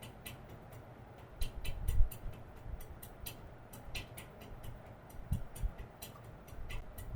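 Hand-tightening the cap onto the plastic water jar of a steam vaporizer: light, irregular plastic clicking, several a second, with a few dull knocks, the loudest about two seconds in.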